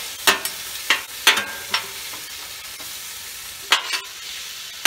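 Steel spatulas scraping and clacking on a Blackstone steel flat-top griddle as shaved steak, peppers and onions are chopped and turned: a quick run of strokes in the first two seconds and one more near the end, over the steady sizzle of the food frying.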